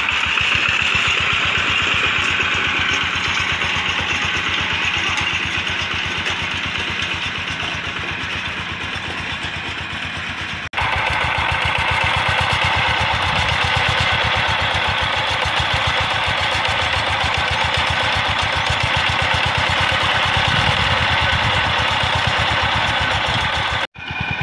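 Single-cylinder engine of a two-wheel walking tractor running with a steady, rapid, even beat. The sound drops out briefly about eleven seconds in and again near the end.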